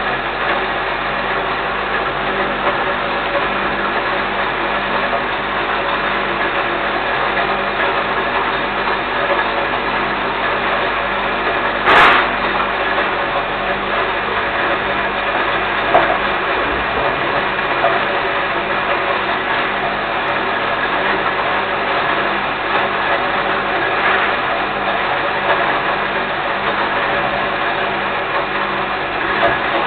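Electric grain mill running steadily, its motor hum mixed with the rush of corn being ground. A sharp knock about twelve seconds in, with fainter ones later.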